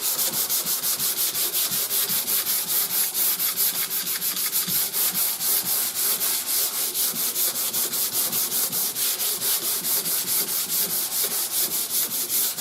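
Hand block sanding of primer surfacer on a car body panel: sandpaper on a sanding block rasping in quick back-and-forth strokes, about four or five a second.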